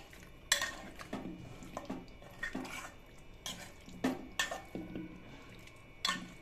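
Chicken pieces being mixed by hand in a wet spice marinade in a metal bowl: soft squishing and scraping, with sharp metallic knocks from the bowl about once a second.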